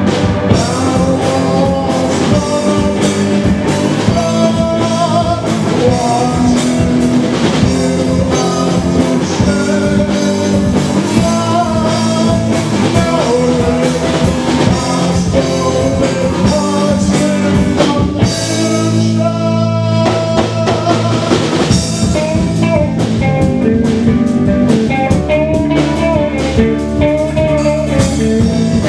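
Live rock band playing loudly: distorted electric guitars over a drum kit, with a bluesy lead guitar line.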